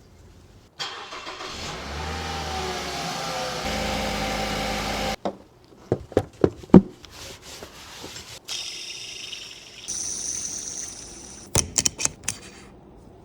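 A car engine cranks, starts and revs for about four seconds, then cuts off abruptly. A few sharp knocks and clicks follow, then a high thin whine, then another quick run of clicks.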